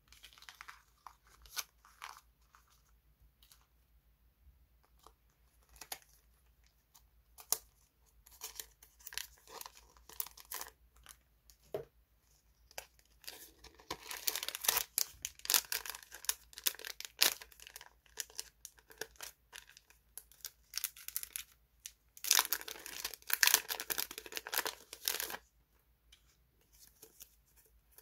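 Crinkling and rustling of die-cut flower stickers and paper handled by hand, with scattered light crackles and two longer, louder spells of crackling, one from about halfway and one a few seconds before the end.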